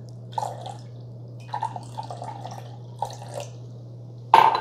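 Water poured from a small glass measuring cup into a larger glass measuring cup, splashing and dripping in uneven spurts. Near the end there is a single sharp clink of glass.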